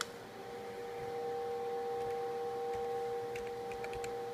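Two steady whistling tones held together from the Elecraft K3 receiver's audio, tuned in CW mode on the 10-metre band, with a short break at the start. A few sharp keyboard clicks near the end.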